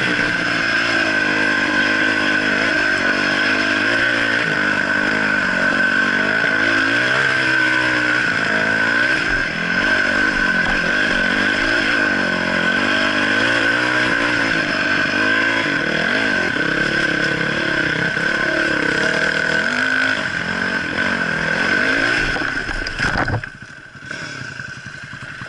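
Dirt bike engine running and revving up and down over a rough trail. It cuts out suddenly near the end as the bike goes over onto its side.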